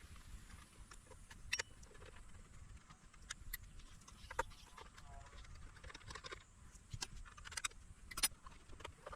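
Faint, scattered light clicks and taps of a screwdriver and plastic case parts being handled while a portable power station is taken apart.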